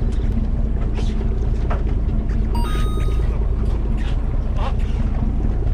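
Fishing boat's engine running steadily with a low rumble, with wind on the microphone; a brief tone sounds about halfway through.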